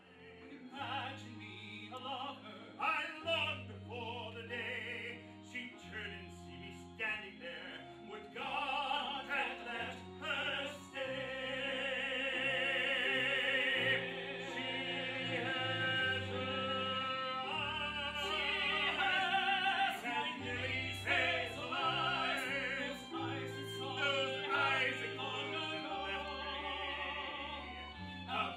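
Music: operatic-style singing with a wide vibrato over an accompaniment of held low bass notes, a number from a stage musical.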